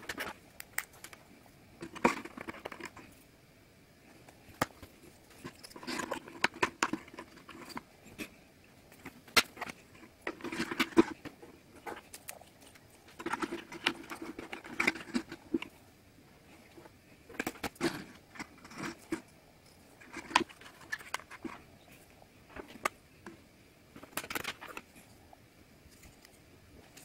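Thin wooden 3D-puzzle pieces clicking, tapping and scraping as they are handled and pushed into the slots of a model house. The sounds come in irregular clusters of sharp clicks and short rubbing noises, with quiet gaps between.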